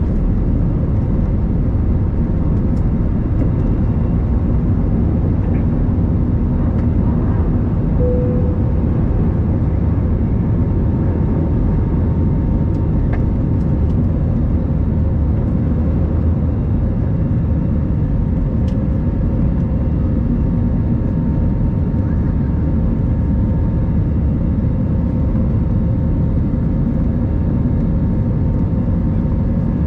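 Steady jet engine and airflow rumble of an Airbus A321-200 heard from inside the passenger cabin, with a faint constant hum over a deep low roar.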